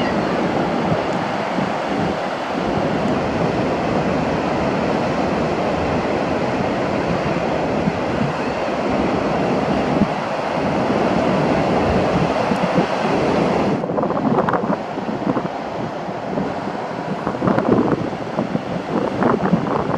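Ocean surf breaking and washing on a beach, a continuous rush of waves. About two-thirds of the way through, the high hiss drops away and the sound turns uneven, with wind buffeting the microphone.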